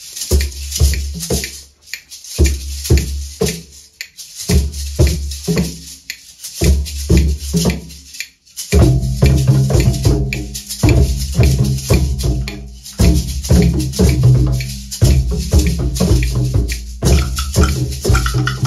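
Children's Orff percussion ensemble playing wooden xylophones with mallets, together with hand drums, in short repeated rhythmic phrases with brief pauses between them. About halfway through, the whole ensemble comes in with a fuller, continuous groove over sustained low bass notes.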